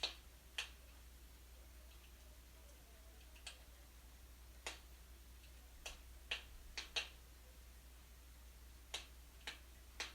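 Wood burning in a fireplace, crackling faintly with sharp, irregular pops, several of them bunched together midway.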